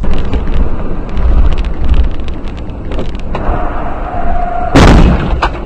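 Road and engine rumble inside a moving car, with scattered knocks from the road. Past halfway a car horn sounds steadily for about a second and a half, then a loud bang cuts in near the end.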